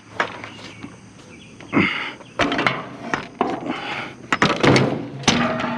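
Irregular metal clanks and knocks from a bed frame being handled and pulled apart for scrap, a dozen or so strikes, some ringing briefly.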